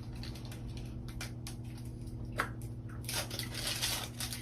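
Close-up eating sounds: chewing with small wet clicks and crunches, turning into a denser crackle about three seconds in.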